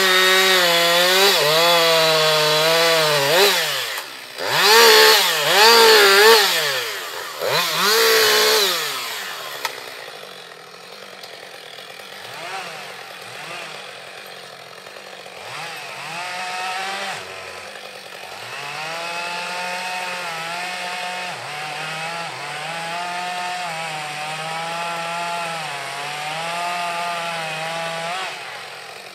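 Two-stroke chainsaw running, its pitch wavering up and down. It is revved hard several times in the first nine seconds, then runs quieter at a lower, wobbling pitch.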